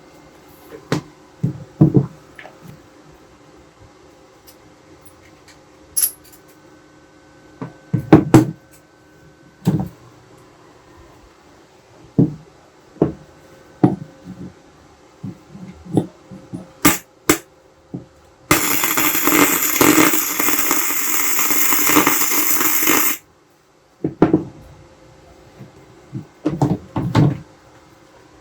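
Scattered knocks, clicks and rattles of hard objects being handled and set down. Past the middle comes a loud steady rushing noise, about five seconds long, that starts and stops abruptly.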